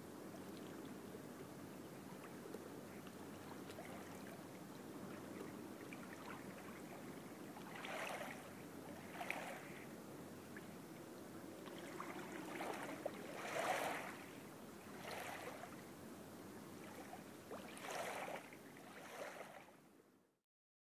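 Sound-art composition played on ceramics, over a steady low rushing background. From about eight seconds in, a string of short swelling sounds comes in, about seven of them, the loudest about two-thirds of the way through. It fades out and stops just before the end.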